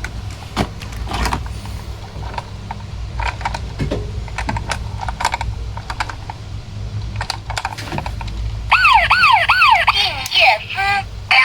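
Light plastic clicks and rattles of small toy vehicles being handled. Near the end, a toy's electronic siren starts wailing in quick rising-and-falling sweeps.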